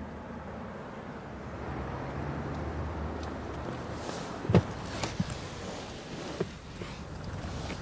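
Rustling and handling noise with a few short knocks, the loudest about four and a half seconds in, as someone climbs into a car's passenger seat.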